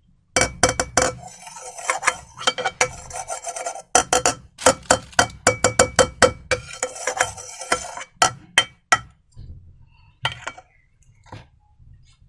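Slime-making materials worked by hand: a quick run of sharp clicks and crackles over a rasping, rubbing noise. It thins out to a few faint clicks about nine seconds in.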